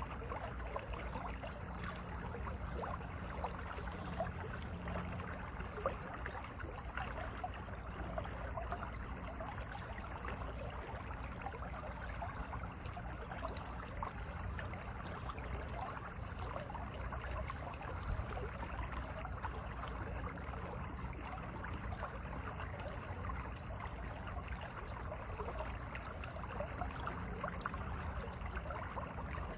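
Mountain valley stream running, a steady, unbroken babble of water.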